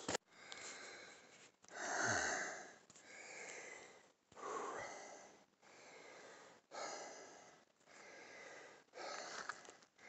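A hiker breathing hard after a steep climb: short, hissy breaths in and out, about one a second, with a stronger breath about two seconds in.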